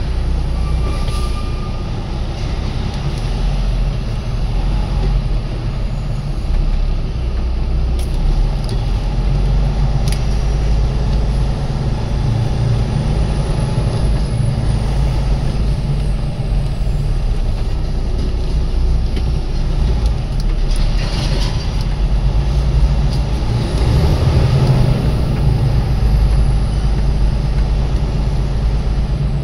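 Semi truck's diesel engine running while the truck moves slowly, heard from inside the cab as a steady low rumble.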